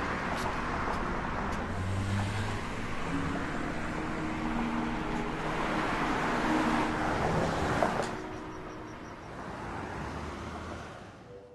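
Street traffic noise that swells and fades like passing cars, with soft sustained low notes of background music underneath; it thins out after about eight seconds.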